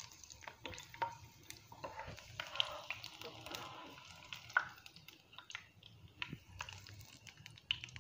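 Green chillies frying in hot coconut oil, a faint sizzle, with scattered clicks and taps of a perforated skimmer against the pan and plate as the fried chillies, ginger and garlic are scooped out.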